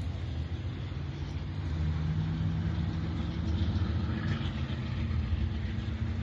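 Steady low engine rumble, with a faint engine note that comes in about two seconds in and rises slightly in pitch.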